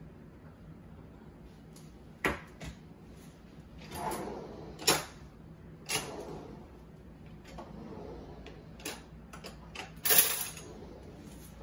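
Kitchen handling noises: a string of separate knocks and clinks from utensils and containers being handled, with a louder short scraping rush near the end.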